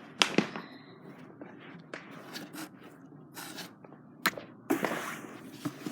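Storage boxes being handled and closed: two sharp clicks near the start, another after about four seconds, and scraping and rustling between them.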